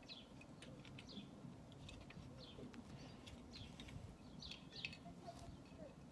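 Faint background of small birds chirping: many short, high calls scattered throughout, with a few faint clicks among them.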